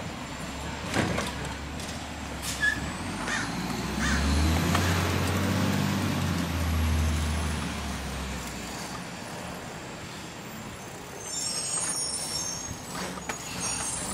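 Garbage truck engine revving up for about four seconds a few seconds in, then easing back, over steady road and wind noise. There are a couple of sharp clacks early on and a few high squeaks near the end.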